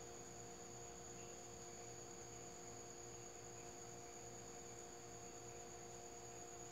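Near silence: room tone with a faint steady electrical hum and hiss.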